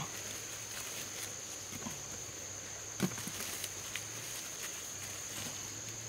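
Rainforest ambience: a steady high-pitched drone over a faint low hum, with a few soft knocks, the sharpest about three seconds in.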